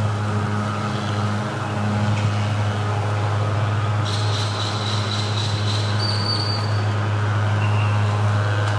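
A steady, loud low mechanical hum from running machinery. A thin high whine joins it about four seconds in and steps up in pitch before fading about three seconds later.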